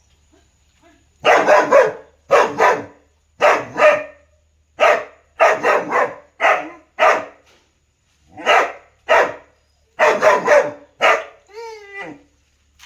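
A dog barking loudly in short bursts, many of them quick pairs, about a dozen barks over ten seconds. Near the end comes a short, wavering whine that falls in pitch.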